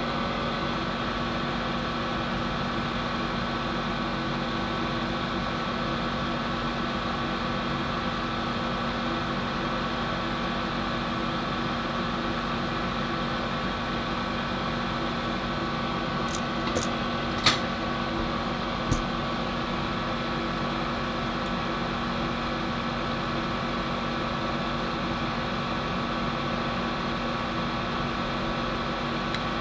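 Steady hum of a fan-driven bench machine, with a few light ticks about two-thirds of the way through as the tweezers and soldering iron touch the board.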